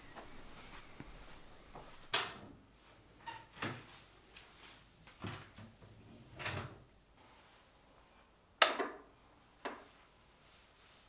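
Household handling sounds in a small tiled bathroom: a door clicking shut about two seconds in, a few soft knocks and rustles, then two sharp clicks about a second apart near the end.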